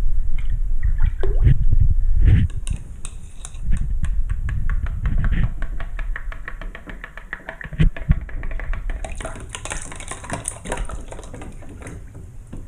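Handling noise from a soaked flip phone, with water sounds and a quick run of small clicks and crackles.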